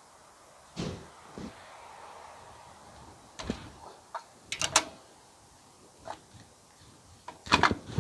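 Scattered clicks and knocks of a screwdriver, small parts and wire being handled while an earth wire is fitted in an air compressor's wiring, with a quick run of sharp clicks about halfway and a louder knock near the end.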